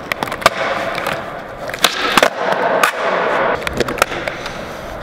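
Skateboard wheels rolling on a smooth concrete floor, with several sharp clacks of the board's tail and deck hitting the concrete as flat-ground tricks are tried.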